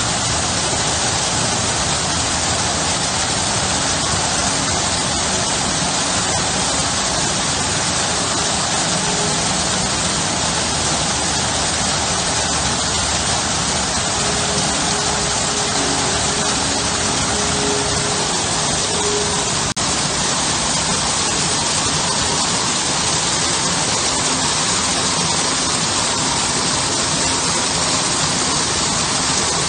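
Small garden waterfall pouring over a stone wall into a shallow pool: a steady, even rush of falling water.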